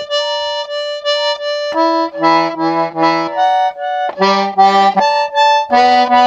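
Amateur garmon (Russian button accordion) being played: one note held throughout while fuller chords with bass notes sound over it about three times. The instrument is badly out of tune, with no tuning left at all, as the repairer judges before repair.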